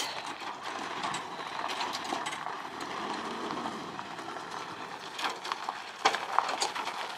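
Diesel pickup slowly reversing a twin-axle livestock trailer over a gravel yard: the engine running steadily and the tyres crunching on gravel, with a few knocks from the trailer about five and six seconds in.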